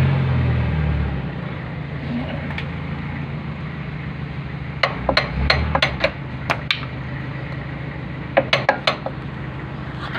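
Sharp metal-on-metal clanks from a slide-hammer hub puller being worked on a truck wheel hub, to draw the hub off for a leaking hub seal. They come in irregular clusters of quick strikes, about five seconds in and again near the end. A low rumble fades out in the first second.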